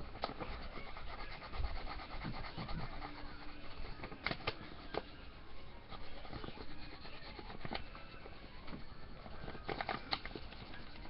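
Crayon rubbing back and forth on paper as it is coloured in, with a few sharp taps scattered through.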